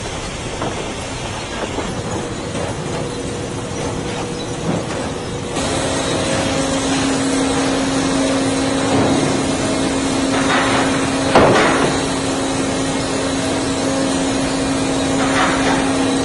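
Sawmill lumber-sorting machinery running with a steady mechanical din. About five seconds in it gets louder and a constant hum sets in. A few sharp knocks and clatters of boards stand out later, the loudest about eleven seconds in.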